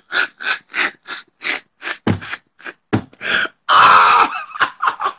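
A man laughing hard in a long run of short, breathy gasps, about three a second, with one louder, longer burst of laughter about four seconds in.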